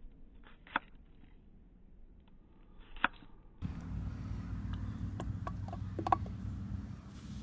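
Small folding knife slicing garlic cloves against a granite rock: faint ticks and two sharp clicks of the blade striking the stone, about a second in and again around three seconds. Then a steady low rumble sets in, with a few light taps as garlic slices drop into an enamel pot.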